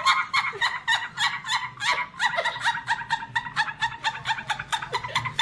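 A woman laughing helplessly in rapid, high-pitched bursts, about six a second.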